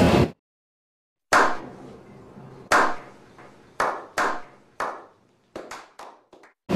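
A slow clap: single hand claps with echoing tails, over a second apart at first and then quickening into several quick claps near the end. At the very start a short burst of steady wind-and-water noise cuts off abruptly.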